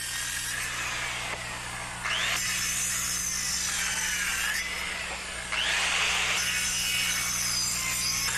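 Handheld circular saw gang-cutting across a stack of wooden rafters, its whine shifting in pitch under load. The cut gets louder about two seconds in and again about five and a half seconds in as the blade bites into more boards.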